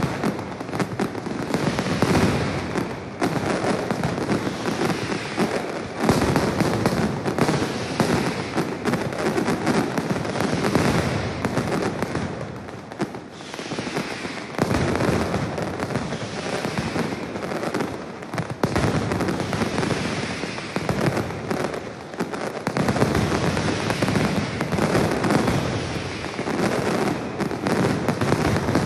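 Mascletà: a dense, unbroken barrage of ground-level masclets (loud firecrackers) bursting in rapid succession. The barrage swells and eases, with brief lulls about 13 and 22 seconds in.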